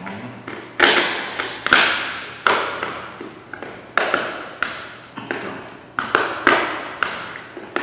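Repeated sharp knocks on a plastic surface-mount RJ45 wall socket box, about ten in a row, roughly one every second or less, each ringing briefly, as its cover is pushed and tapped into place.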